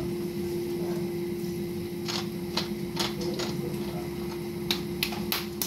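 Steady household hum with one fixed tone, and a scattering of light, sharp clicks and ticks over the second half.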